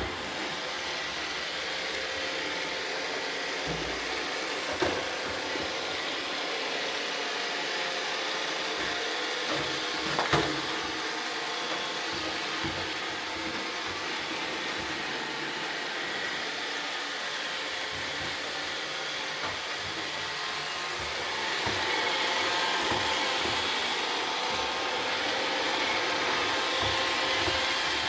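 iRobot Roomba robot vacuums running steadily, with a couple of sharp knocks about five and ten seconds in. The sound gets louder about three-quarters of the way through.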